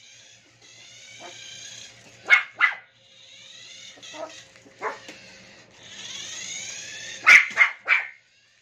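Toy poodle giving short, sharp barks: two together a little over two seconds in, one near five seconds, and three in quick succession near the end. Under them, the whir of a small remote-control toy car's electric motor rises and falls in pitch as it drives about.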